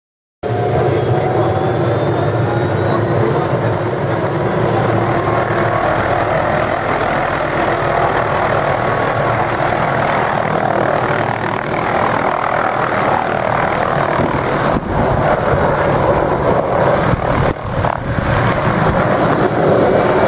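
Hughes 500-type turbine helicopter running, with a steady high turbine whine over the engine and rotor noise, briefly dipping a few times near the end.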